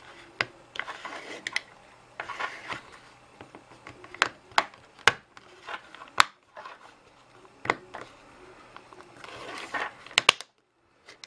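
Plastic casing of a power bank being pressed back together by hand: a string of sharp plastic clicks and snaps as the halves are pushed into place, with rubbing and scraping of plastic between them.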